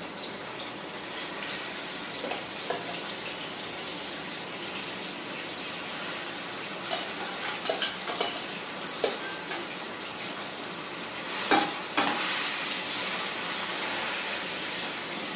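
Dalia (broken wheat) sizzling as it fries in hot ghee in a steel kadhai, a steady sizzle that grows a little stronger after a loud knock about two-thirds of the way through. Steel spoon clinks and scrapes against the steel pot and pan as the wheat is scooped in and stirred.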